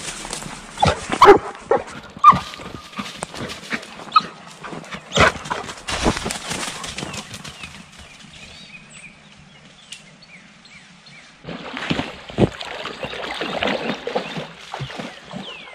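Dogs barking in several loud, sharp barks over the first six seconds. Near the end there is a stretch of rustling and splashing as a dog goes into a shallow creek.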